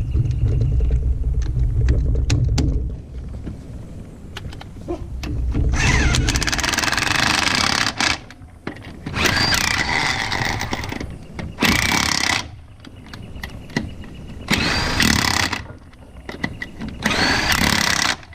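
A power tool run in about five bursts of one to two seconds each, each cut off sharply, after a low rumble in the first few seconds.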